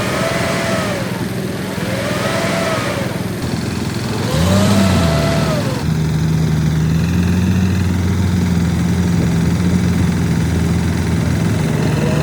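Construction machinery running: a motor whine rises and falls three times, then a steady low engine drone sets in about four seconds in and holds.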